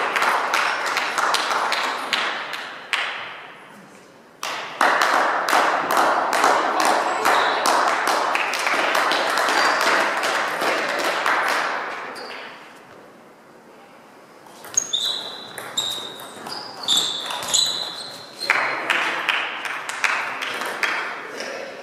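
Table tennis ball bouncing with short, high pings, a run of them about two-thirds of the way in, amid the busy noise of a sports hall with many small knocks and clicks.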